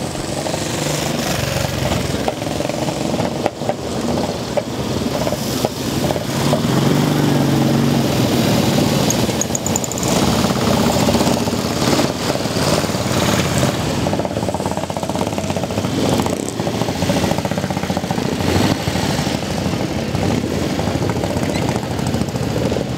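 Several vintage motorcycle engines running together, sidecar outfits among them, with an uneven popping beat as the bikes pull away one after another close by.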